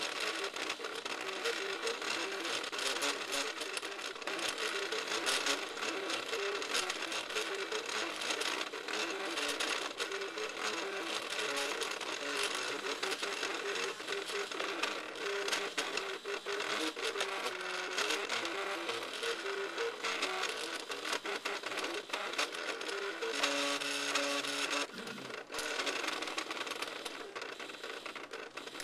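MakerBot 3D printer running a print: its stepper motors whine in short tones that jump from pitch to pitch as the extruder head moves, over a steady hiss. About three-quarters of the way through, a brief falling run of tones.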